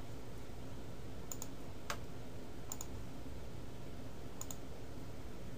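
Computer mouse clicking a few times, several clicks coming in quick pairs, over a faint steady hiss.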